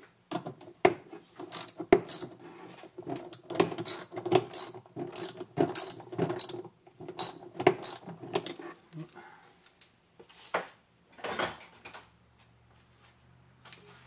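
Socket ratchet clicking in quick runs of strokes as it tightens the terminal nuts on a golf cart's newly fitted starter solenoid, thinning out to a few single clicks near the end.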